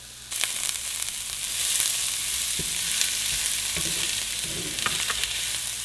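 Diced onions sizzling in butter in a hot cast-iron skillet, with a steady hiss that starts abruptly just after the start. A wooden spoon stirs them and gives a few light knocks and scrapes against the pan.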